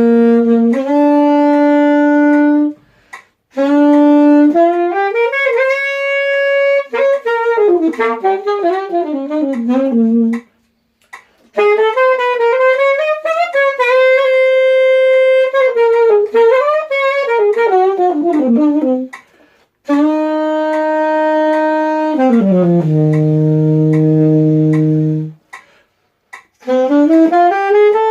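Yamaha saxophone played unaccompanied, a single melodic line in phrases of quick runs and long held notes with short breaths between them, and one long low note near the end.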